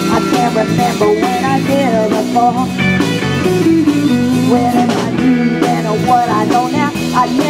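Live blues-rock band playing: two electric guitars, electric bass and drum kit, with a woman singing over them.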